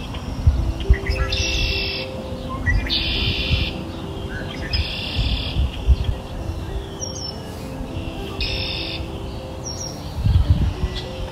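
Calm background music of slow held notes with bird chirping mixed in, short trills recurring every couple of seconds.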